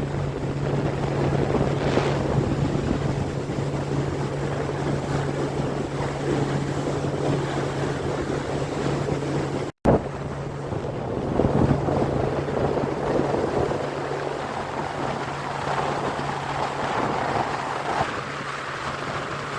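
Sport-fishing boat's engine running with a steady low drone, under wind on the microphone and water rushing past the hull. The sound drops out for an instant about ten seconds in, and afterwards the drone is weaker.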